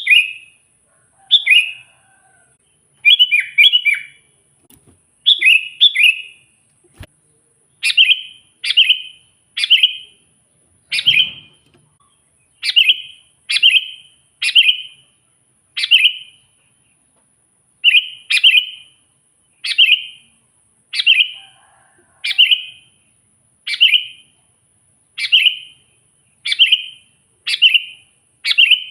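Sooty-headed bulbul calling: short, sharp chirps that come in quick pairs and triplets at first, then settle into single notes about once a second.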